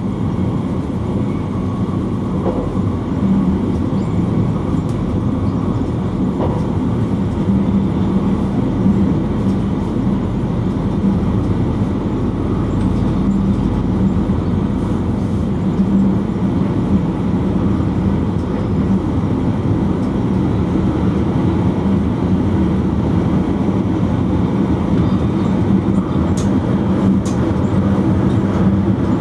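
Electric passenger train running along the line, heard from inside the driver's cab: a steady noise of wheels on rail with a constant low hum and the odd faint click.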